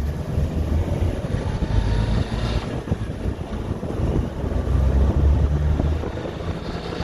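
Subaru Sambar minitruck engine running while driving in first gear, heard from outside the cab with wind on the microphone. The owner is unsure whether an odd noise in it is exhaust, valve train or a bearing.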